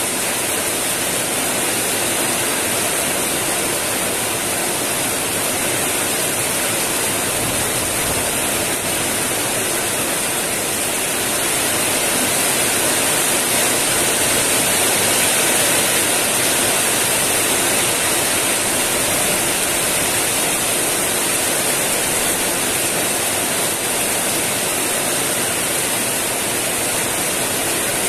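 Heavy rain pouring steadily onto the ground and puddles, a continuous even hiss that grows slightly louder for a few seconds in the middle.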